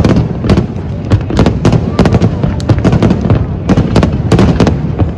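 Aerial fireworks shells bursting in quick, irregular succession, with many sharp bangs and crackles over a steady low rumble.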